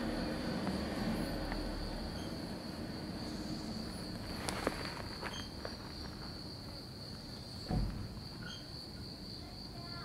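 Insects singing in one steady high-pitched drone, with a sharp click about halfway through and a short dull thump later on.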